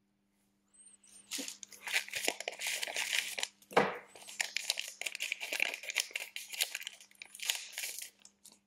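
Thin plastic film being crinkled and torn by hand, in a dense run of short crackly rustles that starts about a second in and stops just before the end. There is one heavier knock partway through, and a faint steady hum underneath.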